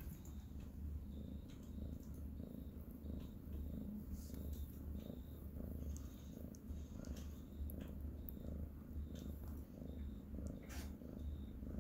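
Domestic cat purring steadily and contentedly while its chin is scratched.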